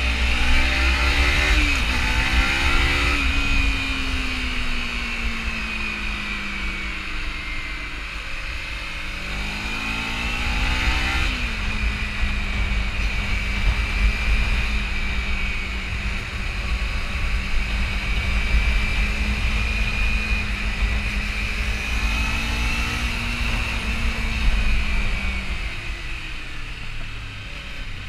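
Kawasaki Ninja 300's parallel-twin engine accelerating hard with two quick upshifts, easing off, pulling again about ten seconds in, then cruising at steady revs before backing off near the end. Wind rushes over the microphone throughout.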